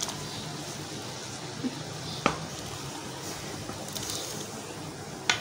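Pot of boiling water bubbling steadily as raw mango slices are dropped into it by hand, with a sharp click about two seconds in.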